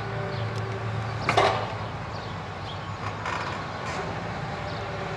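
Hitachi Zaxis excavator's diesel engine running steadily while its demolition grab tears at a house roof, with a loud sharp crack about a second and a half in and a few lighter knocks and creaks after it.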